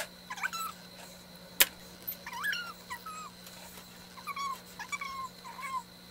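A pet animal making a run of about a dozen short, high whines that slide up and down in pitch, with one sharp click about a second and a half in.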